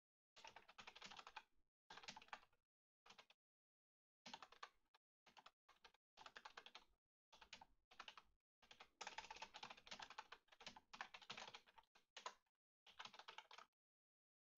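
Faint typing on a computer keyboard: runs of rapid key clicks broken by short pauses.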